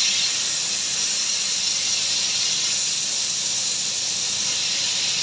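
Steam hissing steadily from a stovetop pressure cooker's vent while its weight valve is held tipped with a wooden spoon. This is a manual pressure release after the heat is turned off, letting all the steam out before the lid is opened.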